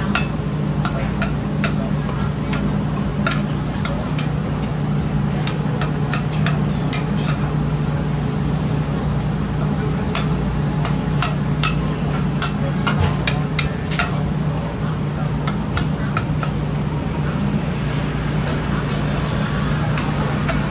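Oyster omelette frying on a flat griddle, with a metal spatula tapping and scraping against the griddle in irregular sharp clicks over a steady low hum.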